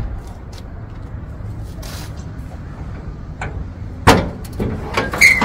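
Handle and latch clicks as a wooden camper door is opened, then a loud knock about four seconds in with a quick run of metal clatter and a short squeak as the pickup's tailgate is unlatched, over a steady low rumble.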